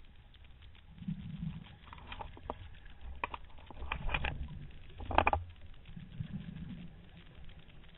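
Underwater exhaust bubbles from a scuba diver's regulator burbling in several short spells, with a few sharp clicks and crackles in the middle.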